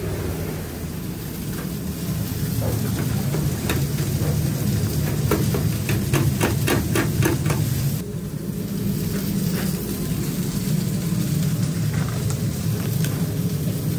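Steady low machine hum of a commercial kitchen, with a run of about a dozen sharp metallic clicks and rattles in the middle as fries are handled in a wire fryer basket.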